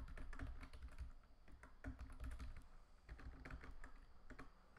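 Typing on a computer keyboard: a fast, uneven run of faint key clicks.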